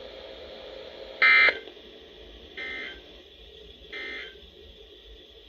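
Emergency Alert System end-of-message tones from a NOAA Weather Radio broadcast: three short data bursts about 1.3 seconds apart, the first the loudest, over faint steady hiss. They mark the end of the severe thunderstorm warning message.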